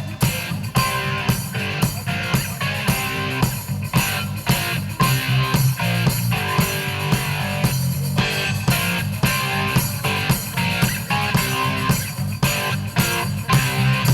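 Rock music played live on a drum kit with bass and electric guitar, the drums keeping a steady, driving beat.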